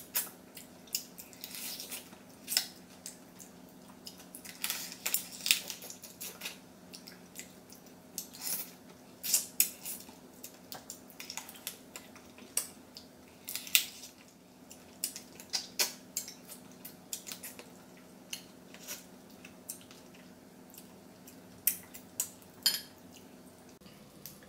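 Close-up eating sounds of someone eating spicy seasoned raw crab by hand: irregular wet smacking, sucking and crackling clicks as the crab pieces are bitten and sucked, over a steady low hum.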